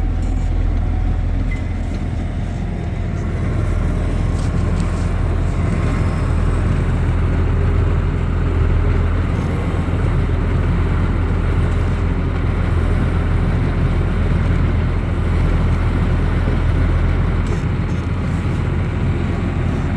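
Farm tractor's engine running steadily with a deep, even rumble, heard from inside the cab while manoeuvring to hitch up a manure spreader.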